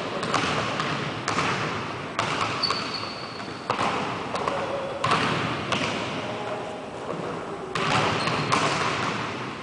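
Basketball bouncing on a hardwood gym floor: separate thuds at uneven spacing during play, each echoing through the large hall.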